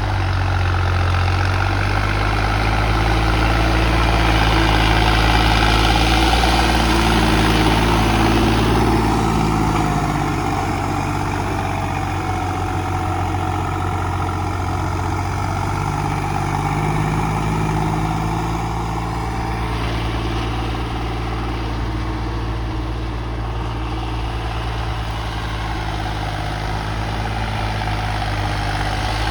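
Turbocharged Swaraj 855 tractor's diesel engine running, its speed shifting up and down a few times. A rushing hiss rides over it for the first several seconds and again about twenty seconds in.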